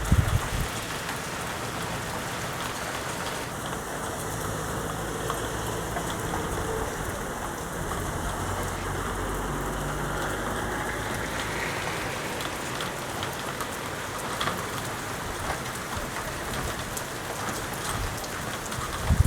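Rain falling steadily in a thunderstorm downpour, an even hiss of drops on surfaces. A faint low hum sits underneath for several seconds in the middle.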